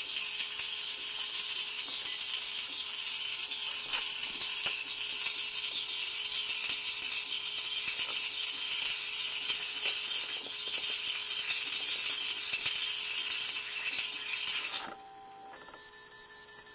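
Homebuilt sinker electrical discharge machine sparking: a steady crackling hiss of electrical discharges with scattered sharp clicks, cutting off suddenly about 15 seconds in. A high steady tone with quick, even pulses follows near the end.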